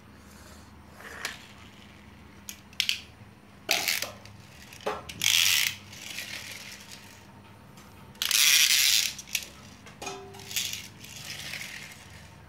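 Small toy cars being pushed across a hard tiled floor and knocked together: sharp clicks and knocks of die-cast and plastic toys, with two longer scraping rolls of toy wheels on the tile, one a little before the middle and one about two-thirds through.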